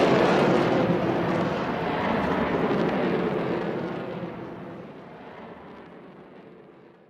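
A rushing roar sound effect that starts loud and fades steadily away over about seven seconds, dying out to silence near the end.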